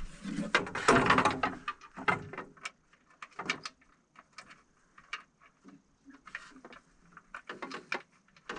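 Plastic interior trim panel being handled and fitted back into a tractor cab: a burst of rustling and knocking in the first two seconds, then scattered clicks and taps.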